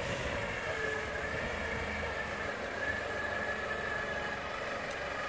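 Clark forklift driving, its engine running steadily with a thin high whine over a low rumble.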